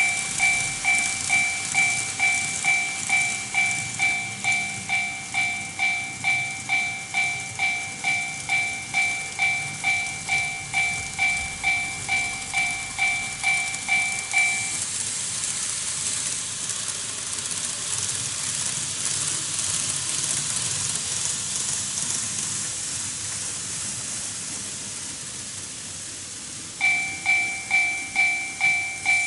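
Electronic warning bell of a TOMIX Automatic Crossing II model level crossing, a two-tone ding repeating about twice a second, which stops about halfway through. A steady hiss of model trains running on the track follows, and the bell starts again near the end.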